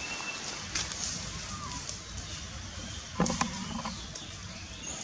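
Outdoor background hiss with a few short high chirps, and a brief low voice-like sound about three seconds in.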